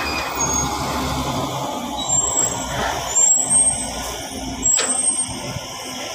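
A heavy truck's engine idling under a steady hiss, with a few brief high squeaks in the middle and a sharp click near the end.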